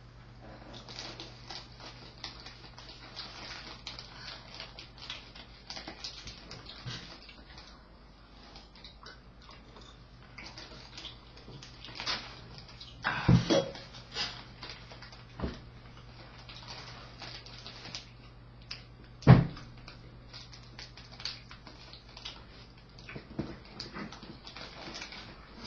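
A dog, heard as many small clicks and knocks, with two loud thumps about halfway and about three quarters of the way through, over a steady low hum.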